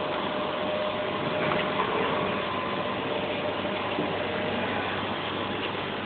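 Steady mechanical whirring and rushing noise of running machinery, with a faint hum and a slight swell about a second and a half in.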